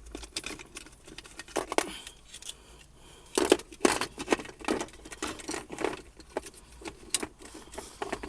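Irregular clicks and rattles of small hard parts being handled, such as a plastic connector, wiring and tools. A louder run of sharp clicks comes about three and a half seconds in.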